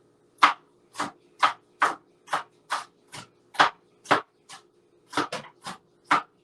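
Knife chopping onion and green pepper on a cutting board: a steady run of short strokes, about two a second.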